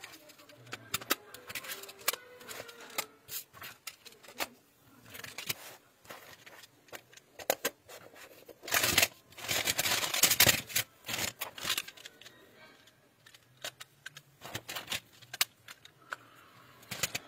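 PicassoTiles plastic magnetic building tiles being handled: scattered clicks as the magnetic edges snap together and pieces are set down, with a longer stretch of rattling and clattering tiles around the middle.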